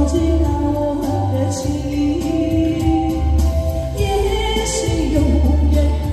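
A woman singing live into a microphone over a backing track with a deep bass, both played through a portable PA speaker.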